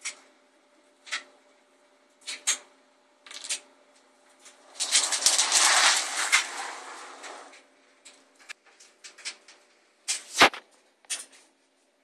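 Metal chain clinking and scraping on a hard vinyl floor as a small dog drags it: separate clinks every second or so, a longer rattling, scraping stretch in the middle, and one heavier knock near the end.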